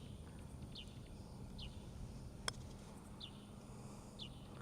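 A single sharp click of a putter striking a golf ball about halfway through. Behind it, a bird repeats a short high chirp roughly once a second.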